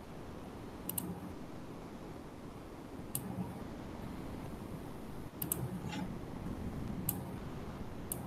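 Sparse clicking at a computer: about six sharp single or doubled clicks, one every second or two, over a faint steady background hiss.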